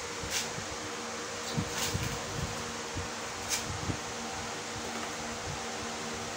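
Dry red dirt clods crumbled and crushed by hand in a plastic basin: soft crunching and trickling, with three sharper crunches about half a second, two seconds and three and a half seconds in. A steady hiss and hum lie underneath.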